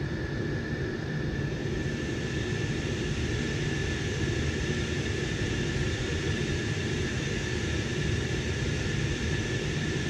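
Steady mechanical hum of a running Munchkin gas boiler and snowmelt circulator pumps, with a constant high whine over it. This is the radiant snowmelt system running under test, sending water at about 133°F into the ground loops.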